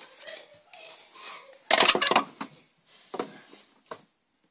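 Toy dollhouse furniture and dolls being handled and set down in a dollhouse: a few light knocks and clatters, the loudest cluster about two seconds in.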